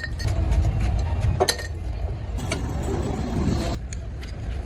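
Scattered sharp metallic clinks, as of hand tools on metal engine parts, over a steady low rumble.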